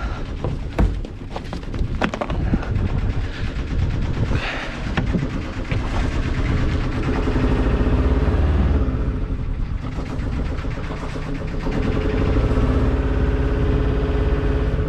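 Small Yanmar inboard diesel of an Albin Vega 27 sailboat running with a rapid knocking beat, rising twice, about halfway through and near the end, as short blasts of throttle are given in reverse to get steerage when backing off the trailer. A few sharp knocks in the first seconds.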